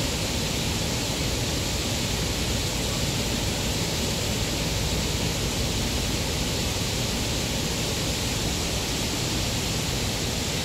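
Steady rush of turbulent water: a loud, even hiss that does not rise or fall.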